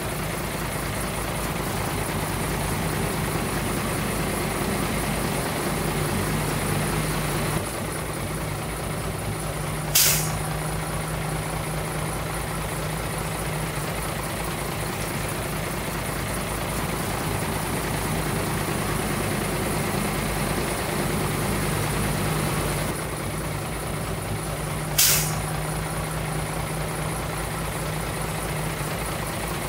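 Heavy dump truck's diesel engine running steadily, with two short, sharp air-brake hisses about fifteen seconds apart.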